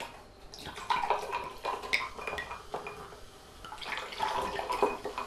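Bottled Hugo, an elderflower sparkling-wine aperitif, glugging out of the bottle into a drinking glass. It comes in two pours, one about a second in and another near the end.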